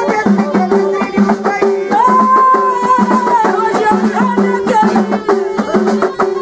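A woman singing folk song, holding one long note about two seconds in, over hand drums and rattling percussion keeping a steady beat.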